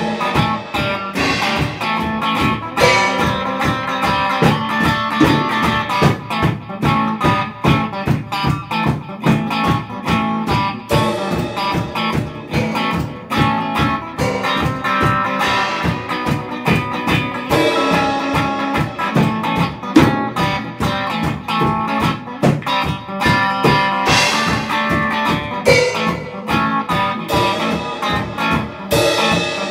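Psychedelic rock music: electric guitar playing over a steady drum beat.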